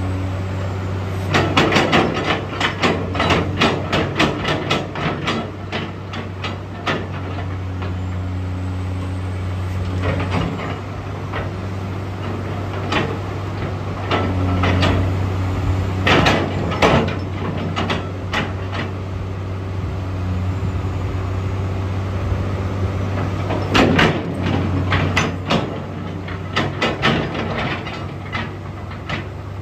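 Cat 345CL excavator's diesel engine idling steadily. Clusters of sharp clicks and knocks sound over it several times.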